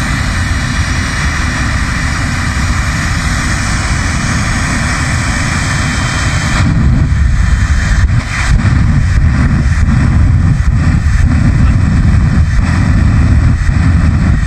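Jet car's jet engine running with a loud, continuous roar. About halfway through it turns deeper and louder, with irregular sharp cracks through the rest.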